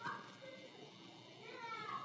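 Faint high-pitched calls: a short one at the start and a longer, wavering one about a second and a half in.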